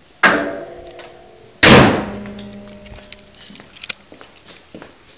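Two loud slams of a car's steel body panel being shut, about a second and a half apart, each ringing briefly and the second one the louder. Light clicks and rattles follow.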